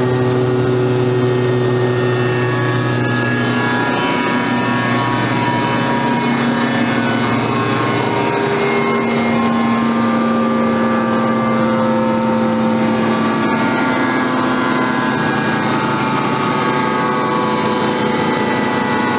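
Trailer-mounted Woodchuck WC12A wood chipper running, its Deutz four-cylinder diesel engine at a steady speed with a constant hum and drone.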